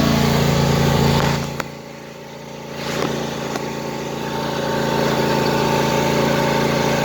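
Craftsman lawn tractor engine running steadily while still wet and steaming after a pressure wash. About a second and a half in the sound drops away sharply with a click, then comes back over the next few seconds.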